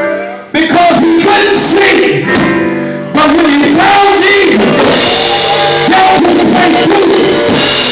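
Live gospel music with singing in a church hall. It dips briefly about half a second in, holds softer sustained notes, then comes back in full about three seconds in.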